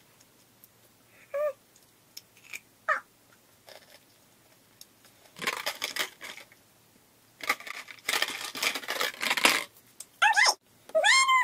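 Two short, high squeaks from a woman's voice, then crackly rustling and rattling as a cardboard carton of Whoppers malted milk balls is handled close to the microphone, then high, sliding squeals of her voice near the end.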